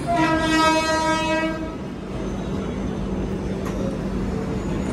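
Indian Railways locomotive horn sounding one steady blast of just under two seconds, over a steady low hum.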